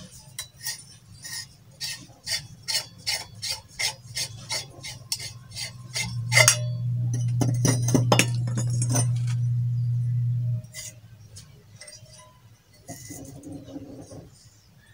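Metal stove parts and galvanized pipe fittings clinking together as they are handled, a quick regular run of about three clinks a second, then one louder clank about six and a half seconds in. A steady low hum sets in around then and cuts off suddenly about ten and a half seconds in, followed by a few softer knocks.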